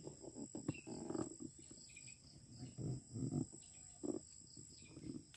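Insects droning steadily in a high, thin tone, with irregular footsteps and rustling through dry leaf litter and undergrowth.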